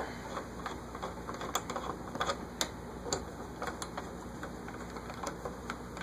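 Hand screwdriver working the blade-iron screws on a ceiling fan's motor hub: irregular sharp metal clicks, roughly two a second.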